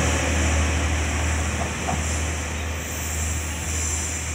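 KiHa 40 diesel railcar pulling away, its diesel engine a steady low drone that slowly fades as the train recedes.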